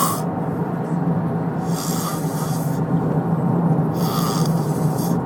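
A man snoring: a harsh, rasping breath comes about every two seconds over a steady low drone.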